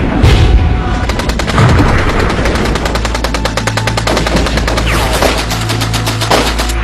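Heavy blasts at the start, then a long stretch of rapid machine-gun fire, many shots a second, with a steady low musical drone underneath.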